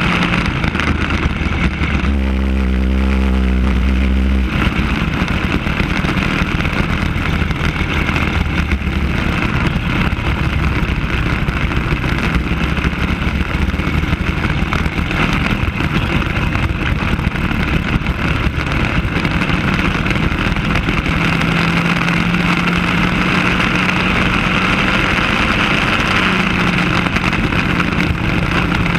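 Racing kart engine running at speed on track, heard from an onboard camera, with a steady rush of air noise over it. Its note changes briefly about two seconds in, then holds steady and climbs a little later on.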